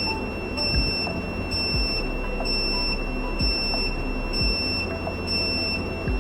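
Continuous high-pitched electronic fault tone from a DSPPA PAVA8500 voice alarm system. It is sounding because its line detection has found an EN54 speaker disconnected. Background music plays underneath.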